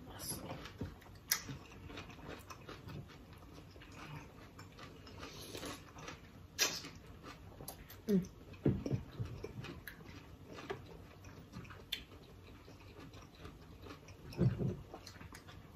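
Close-miked mouth sounds of people eating noodles: chewing and smacking, with scattered sharp clicks of chopsticks and spoons and a few brief hums.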